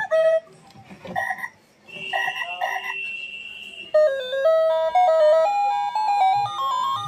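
A quartz twin-bell alarm clock's built-in electronic music alarm playing through its small speaker: short chirping tones and a held high beep, then about four seconds in a simple electronic jingle of stepped notes.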